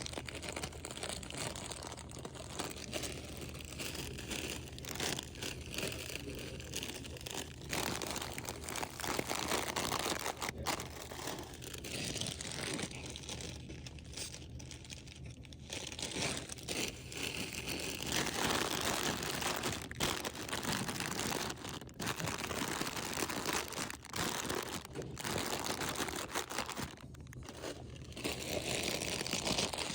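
Plastic snack bags and wrappers crinkling and rustling as they are handled, in irregular bursts with the odd crunch.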